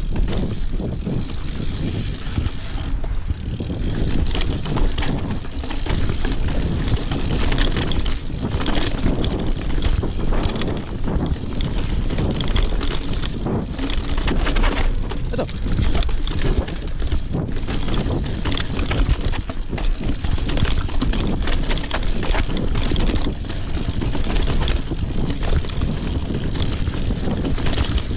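Mountain bike ridden over a rough, rocky trail: a continuous rumble of tyres on stone with irregular rattles and knocks from the bike's frame and parts.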